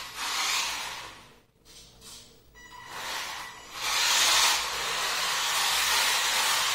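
Small electric RC drift car sliding across a polished tile floor, its tyres hissing in short bursts at first, then in one louder, steady slide from about four seconds in.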